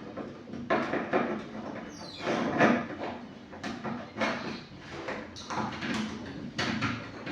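Filled plastic jerrycans of liquid detergent being handled and set down: a series of irregular knocks and scrapes.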